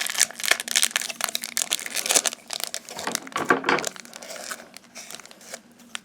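Foil booster-pack wrappers crinkling and rustling as they are handled, a dense run of crackles for about four seconds that then thins out and quietens.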